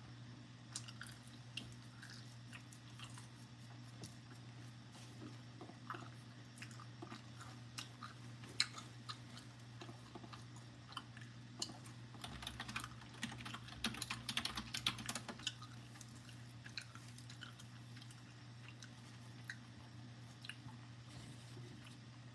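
Close-up chewing and biting of a crunchy snack stick, with scattered small clicks and taps that are busiest a little past the middle, over a steady low hum.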